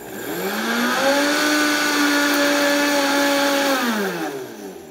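Vitamix blender grinding rolled oats into flour: the motor spins up over about a second, runs steadily at a high whine, then winds down near the end.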